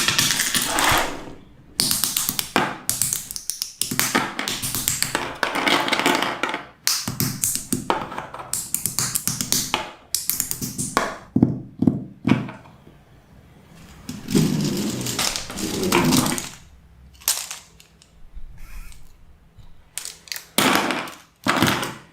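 Plastic construction-toy bricks clicking and snapping together in rapid runs of taps, in bursts with short pauses between them.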